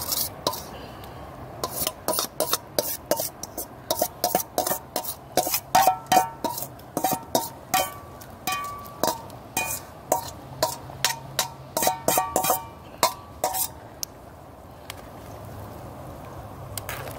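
Metal ladle scraping and knocking against a stainless steel bowl, clearing the last of the seasoning into the pot. It makes a rapid run of ringing clinks, about three a second, that stops about 14 seconds in.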